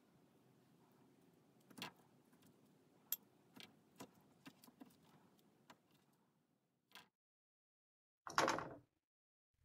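A metal fork clicking and tapping against metal roasting pans and a glass bowl while roasted vegetables are served out: scattered light taps, then one louder half-second noise near the end.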